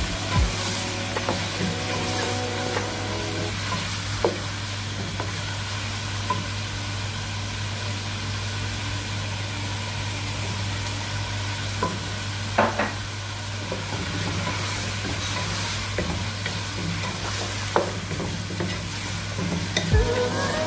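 Chicken pieces and sliced onion sizzling as they are sautéed in a metal pot and stirred with a wooden spoon. The spoon knocks against the pot now and then.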